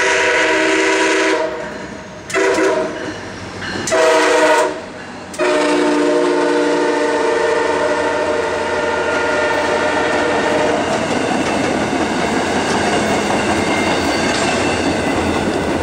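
MARC commuter train's locomotive sounding its multi-note air horn in four blasts: two short ones in the middle, and the last held for about four seconds. Then the passenger cars roll past with a steady rushing noise of wheels on rail.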